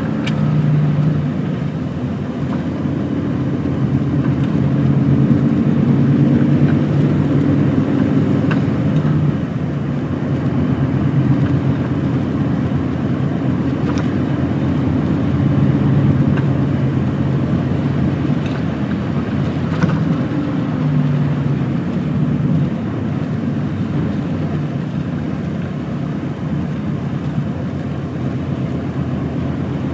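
Lorry's diesel engine running while driving, with steady road noise. The engine note strengthens and eases several times.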